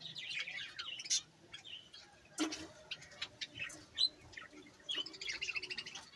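A mixed aviary flock of small cage birds (budgerigars, finches and Java sparrows) chirping and chattering, many high calls overlapping, with a few sharp clicks among them.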